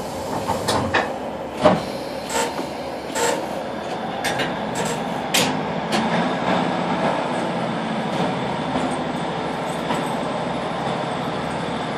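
Inside a Class 156 diesel multiple unit pulling away from a station: the underfloor diesel engine and running gear give a steady rumble as the train gathers speed, with several sharp clicks and clunks in the first six seconds.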